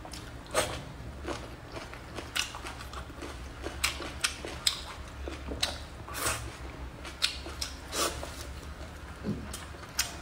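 Close-miked crunchy chewing: a crisp piece of vegetable bitten and chewed, with irregular sharp crunches about one or two a second.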